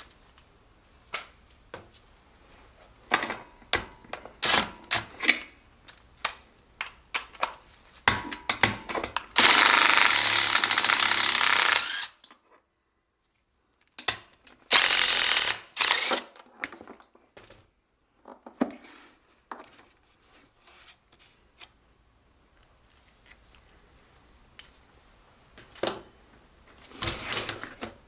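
Impact wrench hammering in two bursts, first about three seconds, then about a second and a half, backing out the 1/2-inch studs that hold the gas tank on a Briggs & Stratton engine. Scattered clicks and clinks of metal tools and parts come before and after.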